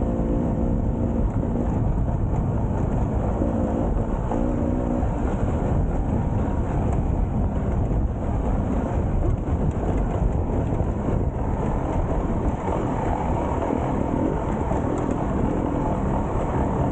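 Off-road enduro motorbike engine running while being ridden, picked up by a camera on the bike or rider, under steady low wind and riding noise. The engine note shows most clearly in the first second and again around four seconds in.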